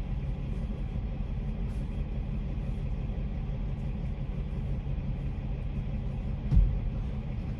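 Truck engine idling with a steady low rumble, heard inside the cab, with a single thump about six and a half seconds in.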